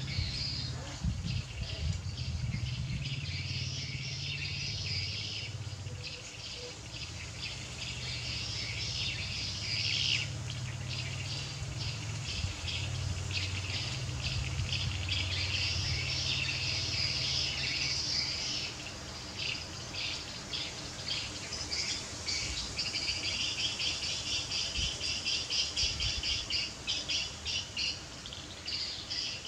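Outdoor background of insects and birds chirping rapidly and continuously, with a low steady hum underneath for the first two-thirds or so.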